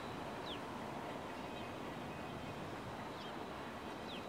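Short, quickly falling bird calls, about three in a few seconds, over a steady rushing outdoor background.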